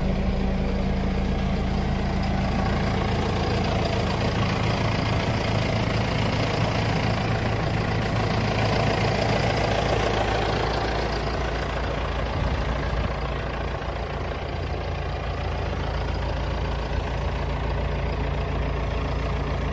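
John Deere 5100R tractor's four-cylinder diesel engine idling steadily.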